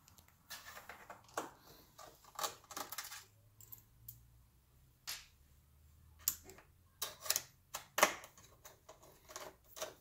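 Irregular small metallic clicks and taps as a Torx T10 screwdriver works the corner screws out of an iMac's LCD panel and the small steel screws are handled. The loudest click comes about eight seconds in.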